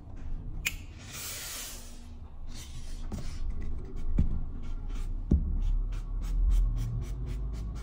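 A hose-fed steam iron gives a short burst of hissing steam about a second in. A wooden pressing clapper is then set onto the cloth and held down, with a few dull thumps and handling noise.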